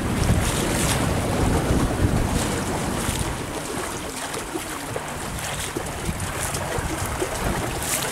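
Wind buffeting the microphone over the rush of water along a sailboat's hull in a fresh breeze of about 20 knots, with a few short splashes; the wind rumble eases in the middle and picks up again near the end.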